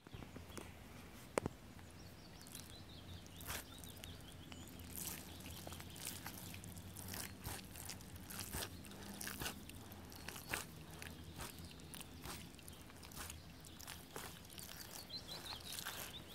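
Rubber Hunter wellington boots squelching in thick, sticky mud, with irregular wet crunches as the feet work loose and step down again. A single sharp click about a second and a half in is the loudest sound.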